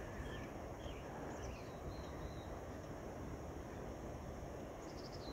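Faint bird chirps, a few short falling notes here and there, over a quiet steady background hum of outdoor air noise.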